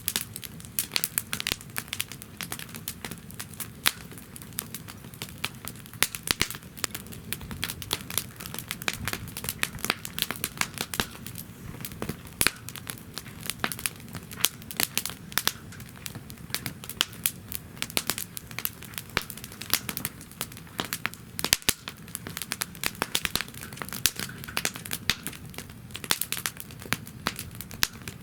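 Wood campfire in a fire stand crackling and popping, with many irregular sharp pops every second over a low steady rush.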